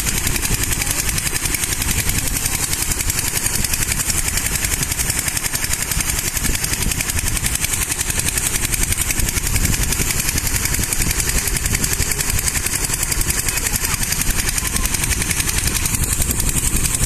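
Small stationary engine driving a water pump, running steadily. Its discharge gushes from the outlet pipe and splashes into the water below.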